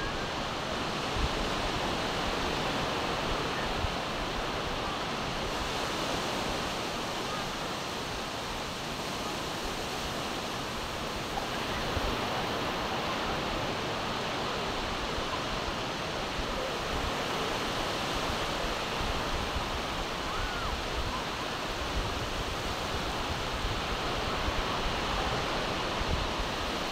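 Steady rush of surf breaking along a sandy beach, with wind rumbling on the microphone.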